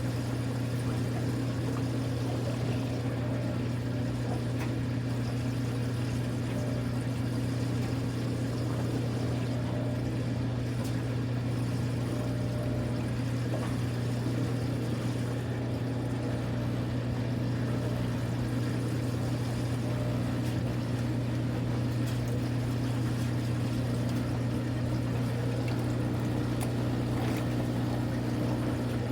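Kuppet portable washing machine running: a steady motor hum with water moving in the tub.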